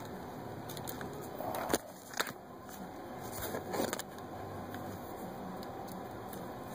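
A few sharp clicks and light handling noises as a ribbon-cable connector is plugged onto a 3-digit display board, two clicks a little before two seconds in and another near four seconds, over a steady background hiss.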